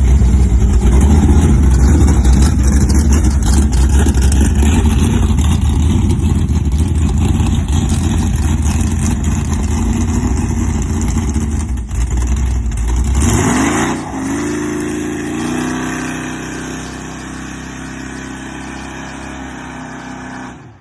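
355 small-block Chevy V8 in a Squarebody pickup running loud and deep under way. About thirteen seconds in the revs climb quickly, then the level drops to a quieter, steadier drone that rises gently.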